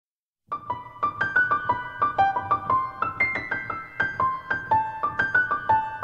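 Background piano music, starting about half a second in: a quick melody of single notes over a low accompaniment.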